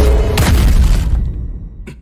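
An explosion sound effect: a sudden deep boom with a sharp crack about half a second in, rumbling and dying away over about a second and a half.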